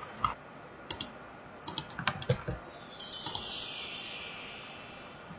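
Scattered clicks of a computer mouse and keyboard. About three seconds in, a high electronic sweep falls steadily in pitch for about two and a half seconds, and it is the loudest sound.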